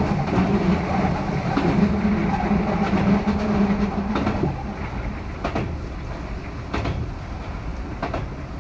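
Keihan 3000-series electric train running, heard from inside the car: a steady low hum drops away about four and a half seconds in, leaving quieter rolling noise with a few sharp clicks.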